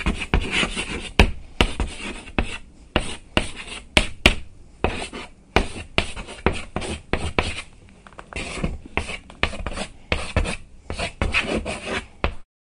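Pen writing on paper: a long run of quick, irregular scratchy strokes that cuts off suddenly near the end.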